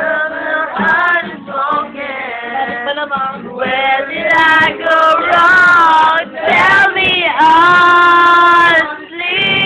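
An amateur group sings a song together, with a woman's voice leading. The voices slide between notes and hold long notes, loudest in the second half.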